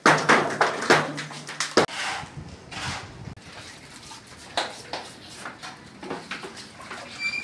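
A quick series of sharp hammer strikes on the concrete seal of a cemetery wall niche, as it is broken open for an exhumation. After about two seconds the strikes stop, and only light knocks and scrapes of handling follow.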